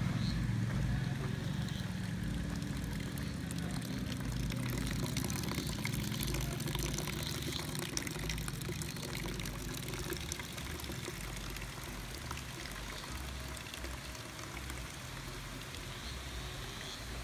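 Water pouring steadily from a tap on a PVC standpipe onto the ground, the outflow lifted there by a hydraulic ram pump.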